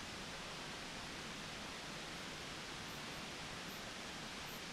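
Steady, even hiss of background noise with no distinct events.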